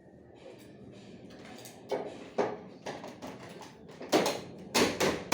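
A string of sharp, irregular knocks and clunks, about eight in all, starting about two seconds in and loudest near the end.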